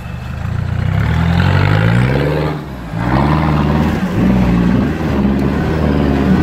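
Engine of a lifted off-road car revving hard under load as its mud tyre spins in bog peat: the pitch climbs for about two seconds, drops off briefly near the middle, then surges up and down several more times.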